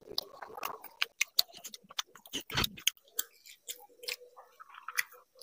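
Close-up chewing of fried rice, with many small wet mouth clicks and smacks, and a single dull knock about two and a half seconds in.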